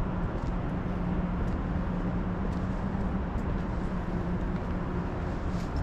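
Steady low rumble of city background noise with a constant low hum underneath, of the kind made by traffic or running machinery, and a few faint light ticks.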